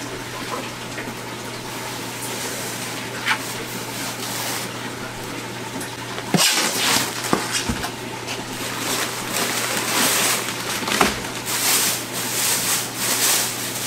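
Steady rush of running aquarium water with a low hum. From about six seconds in, crinkling and rustling as a styrofoam fish-shipping box is opened and its plastic liner is pulled back.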